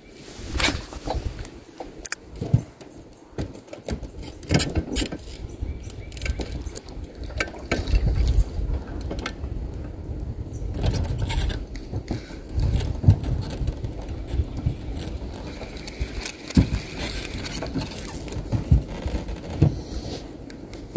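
Handling noise in a jon boat: scattered knocks and scrapes over an uneven low rumble.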